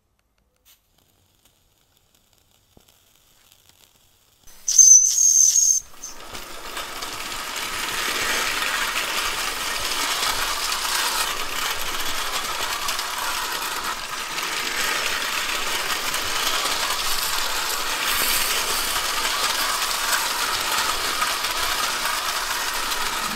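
1920s Bing live-steam tin toy locomotive: a brief shrill blast of steam about five seconds in, then steady hissing steam and light metallic rattling as it runs on tinplate track.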